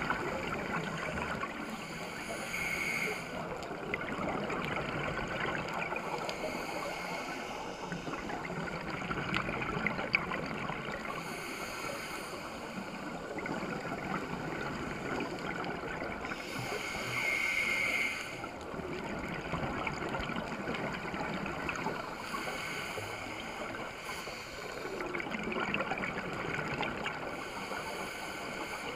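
Underwater sound of scuba regulator breathing: a breath cycle about every five seconds over a steady underwater rush, the loudest breath a little past halfway.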